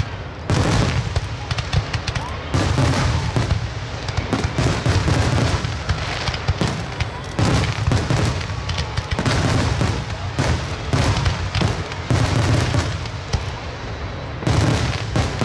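Aerial fireworks shells bursting in quick succession, with many overlapping booms and crackles and no pause between them.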